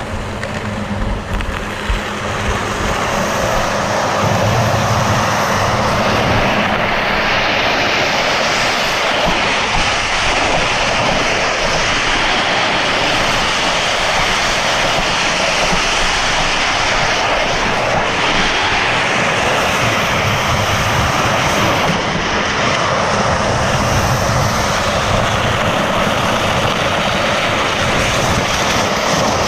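A vehicle's engine picking up speed over the first few seconds, then running loud and steady at speed.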